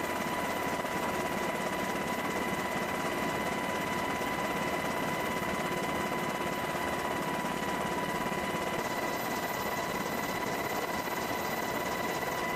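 MH-60 Jayhawk helicopter in flight, heard from inside the cabin with the side door open: a steady rush of turbine and rotor noise with a constant high whine over it.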